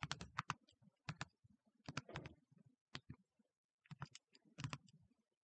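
Keys of a TI-Nspire graphing calculator being pressed: soft, irregular clicks in quick little runs as a function is keyed in.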